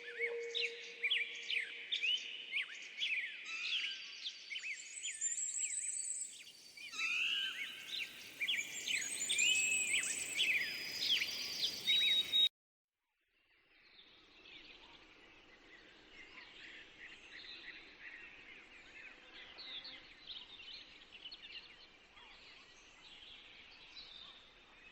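Small birds chirping and singing, many quick overlapping calls. They cut off suddenly about halfway, and after a moment of silence a fainter chorus of birdsong follows.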